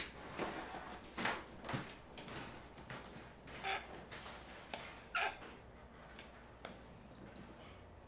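Household things handled by hand: a few scattered soft knocks and rustles with a couple of light clinks, thinning out toward the end.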